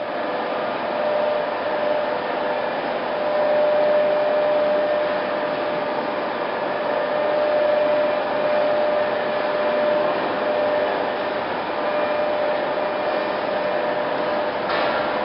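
Heavy-duty lathe running: a steady machine noise with a steady whine held throughout.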